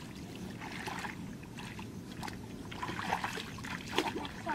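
Shallow muddy water splashing and sloshing as hands grope through it and feet wade, a run of small irregular splashes.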